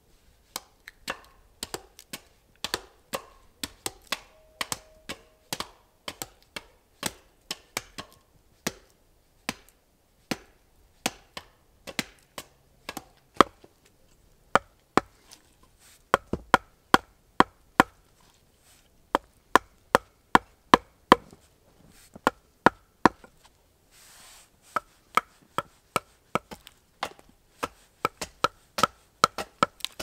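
Wooden mallet striking a wood chisel, cutting into a green log: sharp, separate blows, two or three a second, with short pauses. About halfway, the blows start to carry a ringing note.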